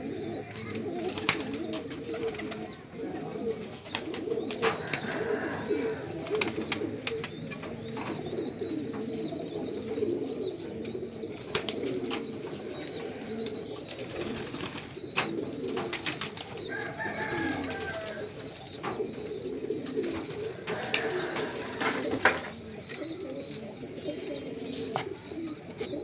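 A flock of domestic pigeons cooing in a continuous, overlapping low chorus, with occasional sharp clicks.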